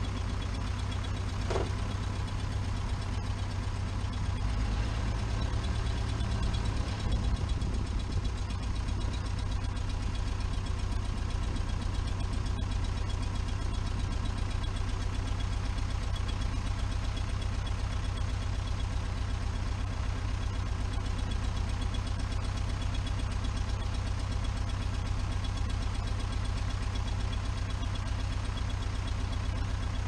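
Jabiru 3300 six-cylinder air-cooled aircraft engine of a Conquest 180 idling steadily at low propeller speed, heard from outside the aircraft under the wing.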